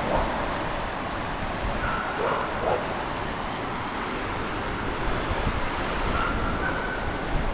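Steady rush of river water, with wind buffeting the microphone. A few faint, brief tones come through about two seconds in and again near six seconds.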